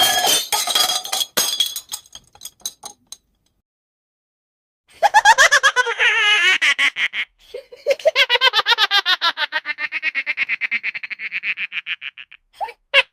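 Cartoon sound effects in turn: the tail of a glass-shattering crash with tinkling shards fading out, then after a short silence a long, rapid, high-pitched chattering effect that pulses several times a second with a wavering pitch, ending with a short blip.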